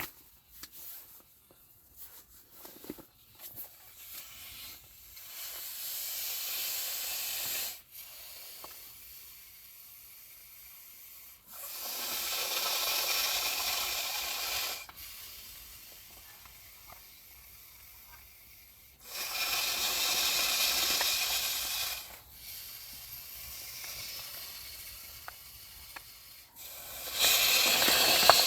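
A person blowing by mouth into the valve of an inflatable sleeping pad: four long hissing blows of a few seconds each, with quieter breathing in between.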